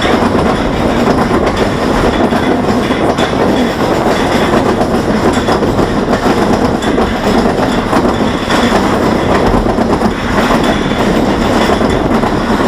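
Tennessee Tornado steel roller coaster train rattling and clacking steadily along its track.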